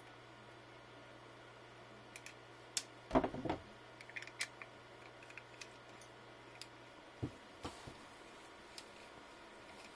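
Small parts of a CPU water block being handled during disassembly: scattered light clicks and taps of screws and metal pieces, with a louder clatter about three seconds in. A faint low hum stops about seven seconds in.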